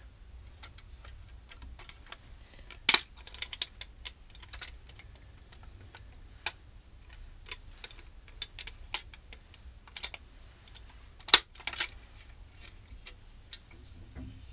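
Plastic paint edger being handled and turned over: scattered light clicks and taps of its plastic parts, with two sharper knocks, one about three seconds in and one a few seconds before the end.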